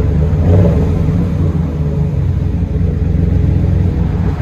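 Vehicle engine idling steadily, with no revving.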